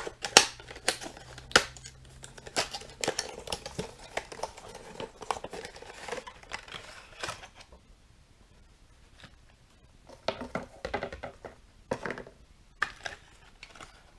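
Cardboard box being opened and a plastic packaging tray pulled out and handled: a run of sharp clicks, scrapes and crinkles, a quieter pause about eight seconds in, then more clicks.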